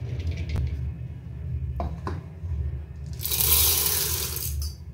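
Dry tapioca pearls (sabudana) poured from a plastic measuring cup into a steel mixer-grinder jar: a pattering hiss of the pearls hitting the steel, lasting about a second and a half in the second half. A few light knocks come first as the jar is handled.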